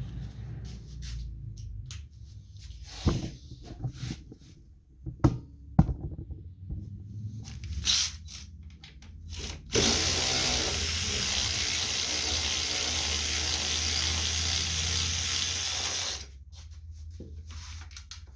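Cordless drill spinning a 3/8 socket on an engine shroud bolt, running steadily for about six seconds and then stopping abruptly. Before it come scattered clicks and knocks of tools against metal.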